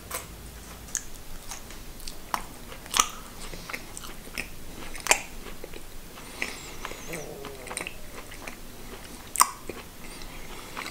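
Close-up chewing of a firm-textured chicken mini kabanos, a thin dried Polish pork sausage: irregular wet clicks and smacks of the mouth, with a few louder snaps about three, five and nine seconds in.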